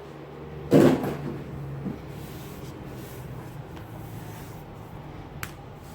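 Hands moving the new Bible and its packaging: a short loud rustle about a second in, then soft rustling and a sharp click near the end.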